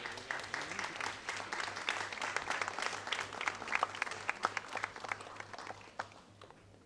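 An audience clapping, starting right away, building and then fading out over the last couple of seconds.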